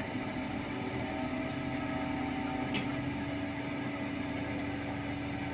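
Truck crane's diesel engine running steadily during a heavy lift, a constant drone with an even pitch.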